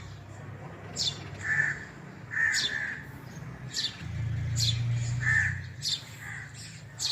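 Baby house sparrow chirping: short high chirps that fall in pitch, about one a second, with a few lower calls between them. A low hum runs underneath for a second or two past the middle.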